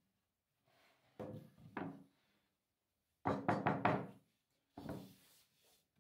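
Pieces of MDF board knocking against each other and the wooden workbench as a jigsawn cut-out and offcut strips are handled: two knocks, then a quick run of four or five louder ones, then one more near the end.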